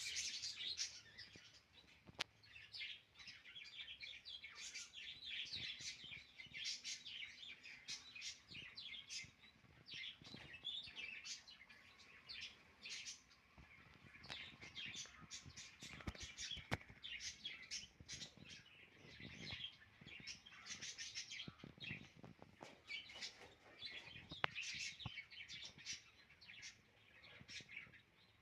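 Small pet birds chirping and twittering in quick, faint, repeated calls, with a few light clicks among them.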